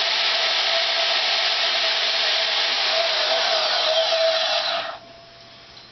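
DeWalt DWM120K portable band saw running and cutting through metal, a steady hiss with a whining tone. It stops abruptly about five seconds in as the cut is finished.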